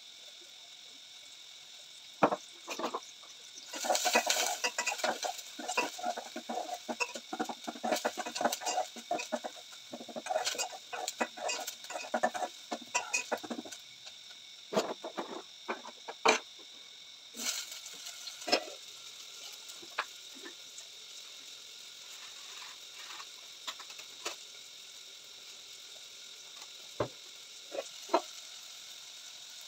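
Chickens clucking in a dense run through the first half, then scattered clicks and knocks of pot and plate handling over a faint steady hiss.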